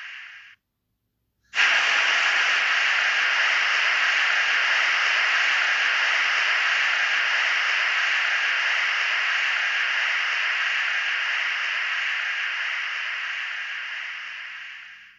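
Mothra creature sound effect: a long, steady hiss that starts abruptly and fades slowly near the end, after the fading tail of a similar hiss and about a second of silence.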